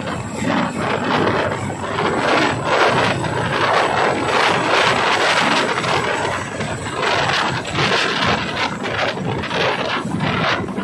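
Boeing CH-47 Chinook tandem-rotor helicopter lifting off and climbing away close by, its rotors and turbine engines making a loud, rushing noise that swells and dips.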